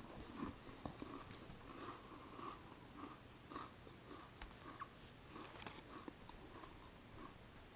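A person quietly chewing crackers with peanut butter and jelly, with soft crunching about twice a second.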